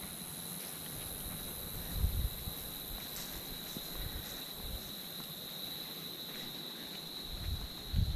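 Insects calling in a steady, unbroken high-pitched drone, with a few dull low thumps about two seconds in and again near the end.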